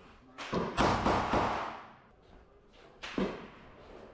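Gunshots fired inside an enclosed shoot house: a quick string of about four shots starting about half a second in, then a single shot about three seconds in, each ringing off the walls.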